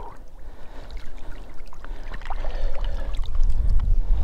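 Wind rumbling on the microphone, growing stronger near the end, with small splashes and drips of water falling from a freshly retrieved drake canvasback held over the lake.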